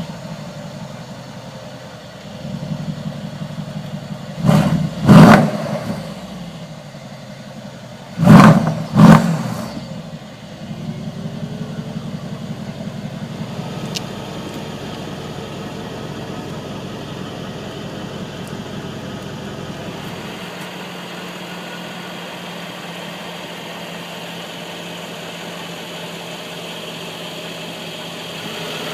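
Mercedes-Benz SL63 AMG's 5.5-litre twin-turbo V8 idling just after start-up and blipped in two quick pairs of revs, one pair about five seconds in and another about four seconds later, each rev rising and dropping sharply back to idle. About twenty seconds in, the idle settles into a smoother, steadier note.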